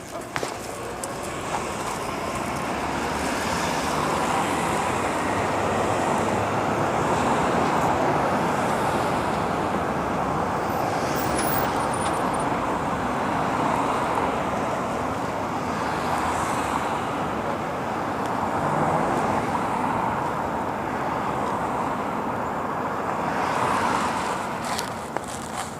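Road traffic on a rain-wet street: a steady noise of vehicles going by that swells and eases every few seconds as they pass.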